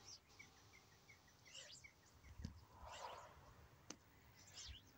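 Near silence with faint bird chirps: a quick run of short repeated notes, then a few brief higher twitters. A soft whoosh comes about three seconds in and a single sharp click about four seconds in.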